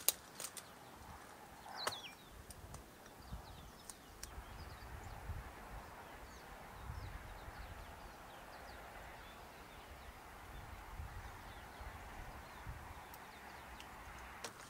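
Faint outdoor ambience: a soft steady hiss with uneven low rumbling, a few faint high chirps, and a single sharp click about two seconds in.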